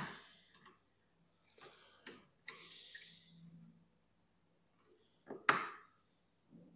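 A pipe slice cutter working on a copper pipe: a sharp metallic click at the start and another about five and a half seconds in, with a few lighter ticks and about a second of scraping as the cutter is turned around the pipe in between.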